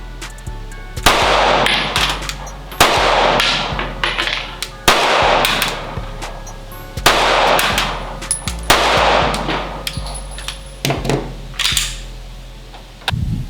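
Sig Sauer M18 9mm pistol firing 115-grain full metal jacket rounds: five loud single shots about two seconds apart, each ringing out for about a second. A few fainter shots follow near the end.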